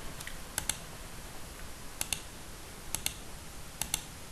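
Computer mouse clicking: four quick double clicks, about one a second, over a faint steady hiss.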